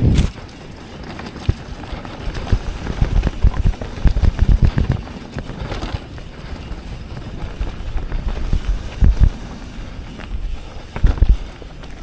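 Yeti SB150 mountain bike knocking and rattling over rough trail, with irregular low thumps from bumps and wind on the microphone.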